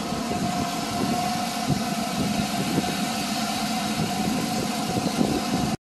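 Go-kart engines running steadily on a track: a continuous engine drone with a held high tone.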